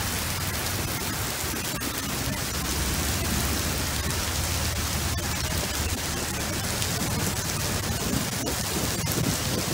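Heavy rain mixed with small hail pouring down onto wet pavement, a steady, dense hiss.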